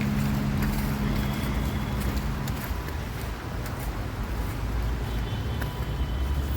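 Outdoor city ambience with distant road traffic: an even rumble and hiss, with a steady low hum that stops about two and a half seconds in.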